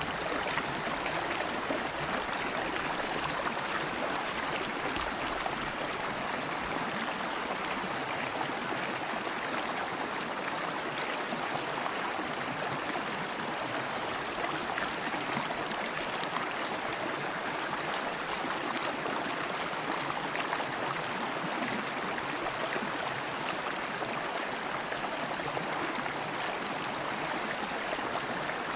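River water flowing steadily over stones, a constant rushing babble with no breaks or changes.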